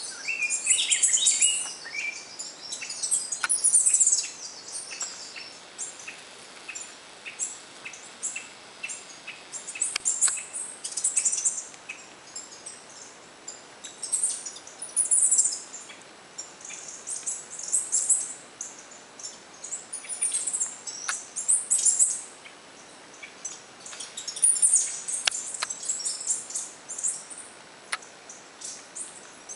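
Wild birds singing: high, thin song phrases repeated every few seconds, with lower chattering calls in the first couple of seconds.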